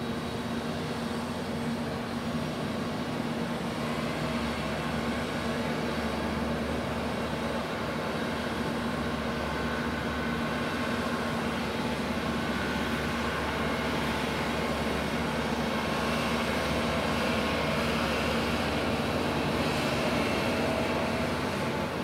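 Steady drone of the passing Uraga-class minesweeper tender Bungo's diesel machinery, a low hum over a broad wash of noise, slowly growing louder as the ship comes abeam.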